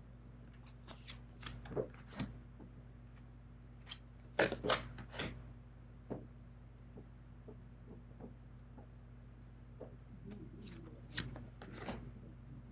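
Tarot cards being handled and laid on top of their decks: soft slides and taps, the loudest cluster about four to five seconds in and more near the end, over a low steady hum.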